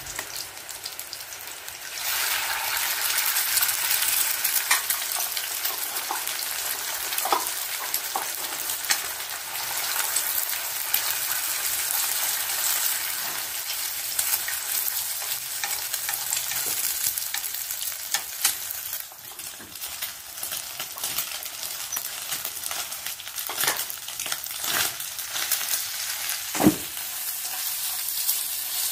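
Egg and rice frying in hot oil in a pan, a steady sizzle that jumps up about two seconds in as the egg goes into the oil. The fried rice is stirred with wooden chopsticks, with scattered knocks of the chopsticks against the pan.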